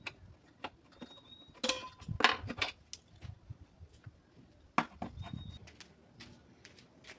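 Sharp metallic clicks and clinks of locking pliers and tools being handled, with a loud cluster about two seconds in and another sharp clack near five seconds.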